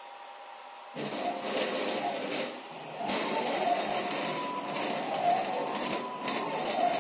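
Motor-driven X and Y axes of a homemade CNC mill moving the table on its ball screws, with a terrible rattling buzz from the loose sheet-metal way covers, which cause the noise. It starts about a second in and eases briefly twice as the motion changes.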